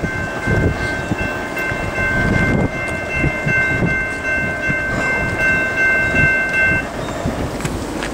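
Horn of an approaching Norfolk Southern freight led by a GE C40-9W locomotive, sounding a held chord of several steady notes that stops about a second before the end, over a low rumble.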